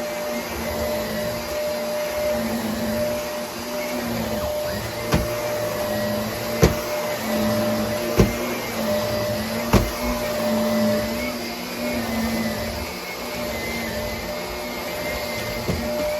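Vacuum cleaner running steadily with a constant motor whine, with four sharp knocks in the middle stretch.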